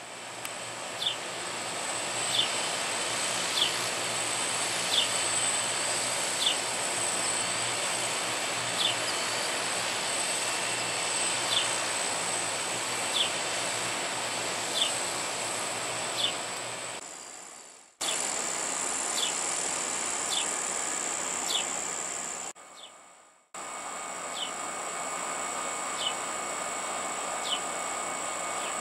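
Summer insects calling: a steady high-pitched trill with a short chirp repeating about every second and a half over a general background hiss.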